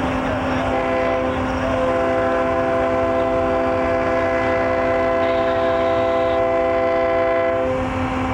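Air horn of a BN diesel locomotive leading a loaded coal train, sounding a long multi-note chord that breaks off near the end, over the running diesel engines.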